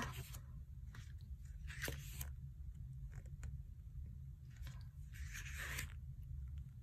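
Pages of a glossy album photobook being turned by hand: a handful of short paper flips and rustles, the longest a little before six seconds in, over a faint low hum.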